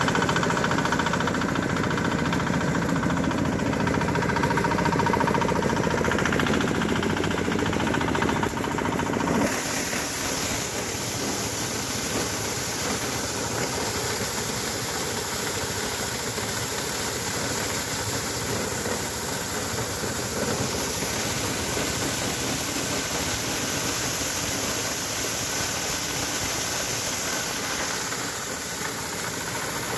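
Engine-driven corn sheller running steadily, its small engine and spinning drum shelling corn. About nine seconds in the sound turns brighter and hissier.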